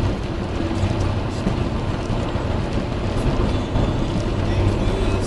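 Steady road noise inside a car cruising on a wet motorway: tyres hissing on the soaked road surface over a constant low engine and road drone.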